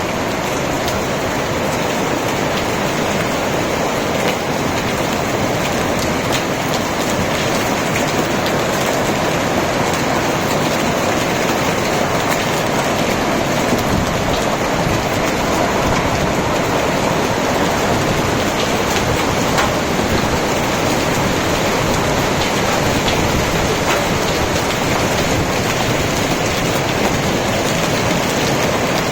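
Hailstorm: hailstones and rain pelting down hard in a dense, steady rush, speckled with many small hits.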